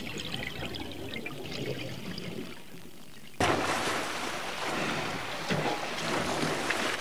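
Muffled underwater sound of a scuba dive, quiet and faintly crackly. It cuts off suddenly about halfway through to louder open-sea noise: choppy water and spray splashing around a dive boat.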